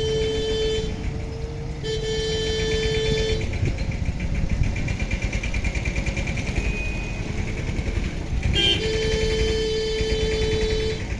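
Road vehicles' horns honking in long held blasts over the running engines of traffic waiting at a closed railway level crossing: one blast at the start, another about two seconds in, and a third near the end.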